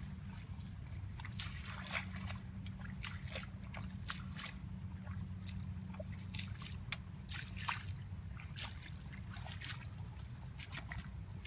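Water sloshing and splashing in many small, irregular splashes, over a steady low hum.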